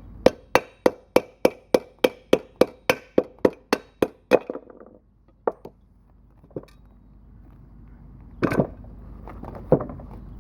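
Metal-on-metal hammer blows driving a bearing out of a small generator engine's block through a large socket: about fifteen sharp, briefly ringing strikes at about three a second, then a few lone knocks and a louder clatter near the end as the bearing comes free.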